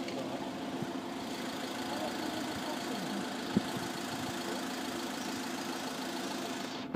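Steady hum of an idling engine, with one short knock about three and a half seconds in.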